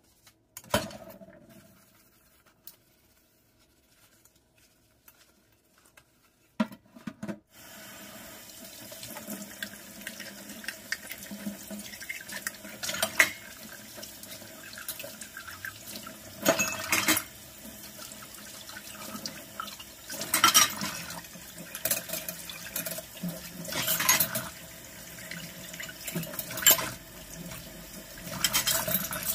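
A few knocks of dishes in a stainless-steel sink, then about seven and a half seconds in the kitchen tap comes on and runs steadily into the sink. The water splashes louder now and then as dishes are rinsed under it.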